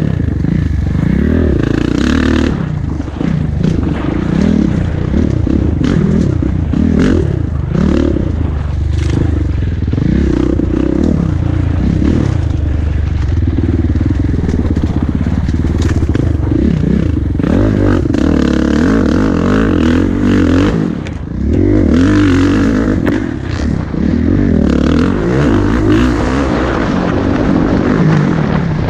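Kawasaki KX four-stroke motocross bike racing over rough singletrack, engine revving up and down without a break as the rider works the throttle through the gears. Wind rushes on the helmet microphone and the chassis rattles and knocks over the ruts. The engine backs off briefly about three-quarters of the way through.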